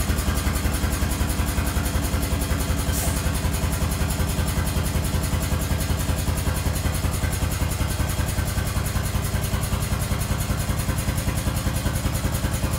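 Air-driven hydraulic pump of a pneumatic drum tipper running steadily with a rapid, even pulsing while it lifts the clamped drum.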